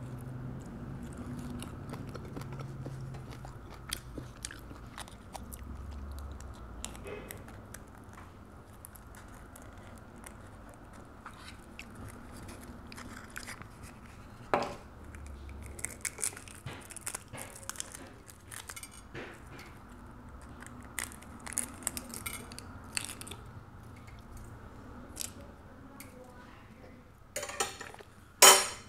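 Close-up eating sounds of balut (fertilised duck egg): chewing, with scattered small clicks and taps as eggs are handled on the plate. Near the end come two loud, sharp crackles of eggshell being broken open.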